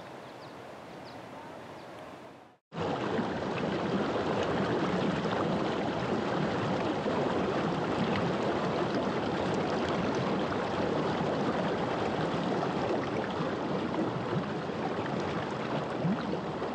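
Rushing water of a stream or river: a steady, even rush that starts abruptly about three seconds in. Before it, a quieter steady noise fades out.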